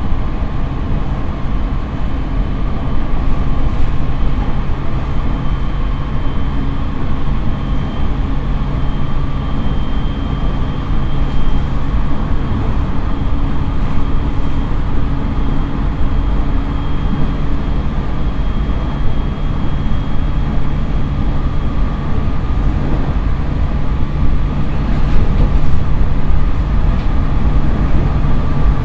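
JR East E501 series electric train with a Toshiba IGBT-VVVF inverter and MT70 traction motors, heard from inside the motor car while powering hard at high speed toward 120 km/h. A steady inverter and motor whine sits over the continuous rumble of wheels on rail.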